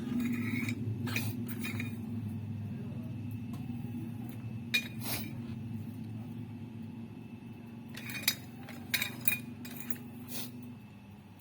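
Model RC excavator working: a steady low motor hum with clusters of sharp metallic clinks, the hum stopping shortly before the end.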